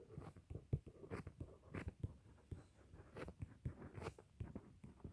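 Faint, irregular taps and scratches of handwriting, a pen tip moving and lifting on a writing surface.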